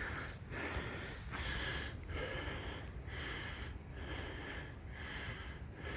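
A man breathing hard and fast close to the microphone, about one heavy breath a second: he is out of breath from tracking and reaching the downed deer.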